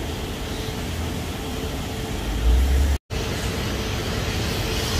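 Steady rushing hiss of a self-service car-wash vacuum running, with a low rumble swelling just before it breaks off for an instant about three seconds in.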